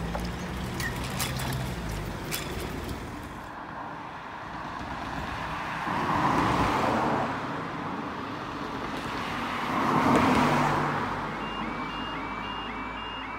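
Road vehicles driving over a railway level crossing: a car passes about six seconds in and another about ten seconds in, each rising and fading. Near the end, the level crossing's warning alarm starts with a high repeating tone, about three pulses a second, as the amber lights come on to begin the barrier closure.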